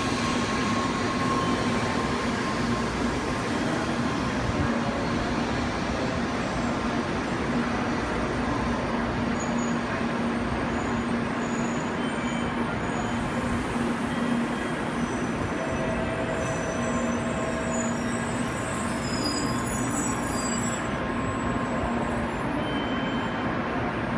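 N700-series Shinkansen train rolling slowly along the platform and coming to a stop: a steady running noise with a low hum and faint high-pitched whines over it.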